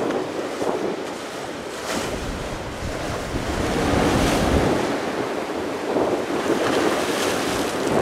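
Ocean surf breaking, a rushing wash that swells and eases, with gusty wind buffeting the microphone.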